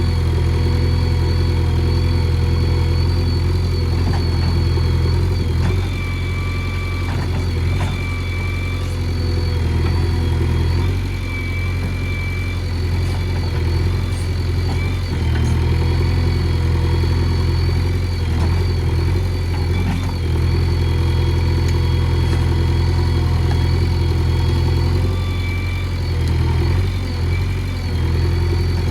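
JCB 3DX backhoe loader's diesel engine running, a steady low drone with a thin high whine over it, easing off briefly a few times.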